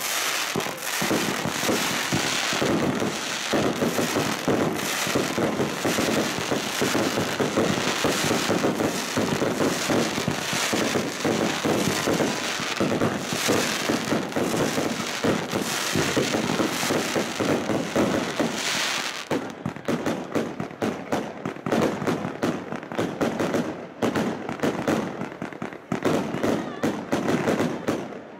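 Fireworks display going off: a dense, continuous barrage of shell bursts and crackling stars that thins out about two-thirds of the way through into separate sharp bangs.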